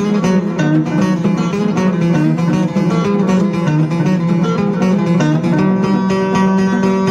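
Background music: fast plucked guitar playing quick repeated notes.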